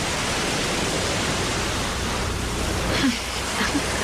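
Steady rushing noise of sea wind and surf, with a few brief pitched sounds about three seconds in.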